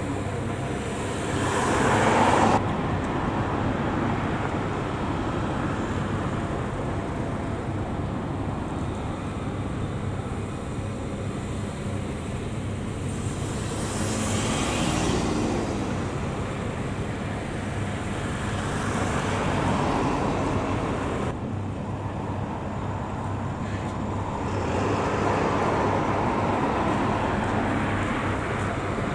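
Road traffic noise: a steady low engine and tyre hum, with other vehicles swelling up and fading several times as they pass.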